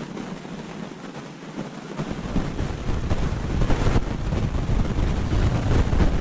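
Wind buffeting the microphone: a steady hiss that becomes a heavy low rumble about two seconds in.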